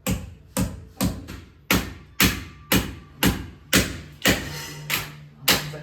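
Repeated hammer blows, about two a second and fairly evenly spaced, each with a short ring-on, with a low steady hum underneath in the second half.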